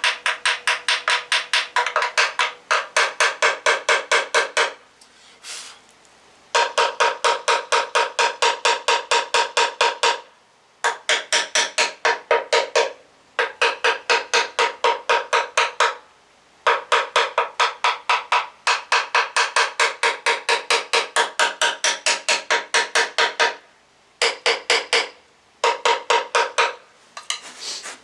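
Rapid, light hammer taps on ringing metal, about five a second, in runs of a few seconds broken by short pauses. The hammer is tapping a tool wedged behind an engine's front cover to drive the cover off its dowel pins, struck lightly so as not to peen it.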